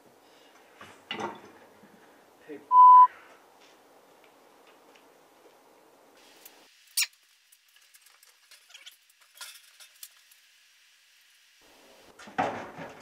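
A short, loud electronic bleep at one steady pitch about three seconds in, the kind laid over a swear word to censor it. Around it are scattered metal clinks and knocks of hand work on tractor parts, with a denser cluster of knocks near the end.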